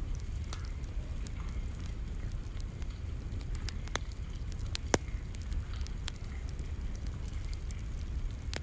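Rain falling, with scattered sharp drop clicks close by over a steady low wind rumble; one louder click about five seconds in.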